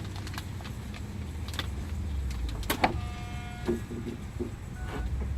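Kia Sedona minivan door closing on the right side, over a steady low motor hum. Several clicks, a sharp clack about three seconds in, and short beeping tones. This is the noise the owner hears again from the right side whenever the door closes.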